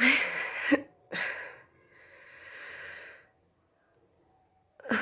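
A woman breathing heavily, with no words. There is a loud breath at the start, a shorter one about a second in, and a longer, softer one, then a pause of over a second before another loud breath near the end. This is the laboured breathing of someone short of breath with COVID-19.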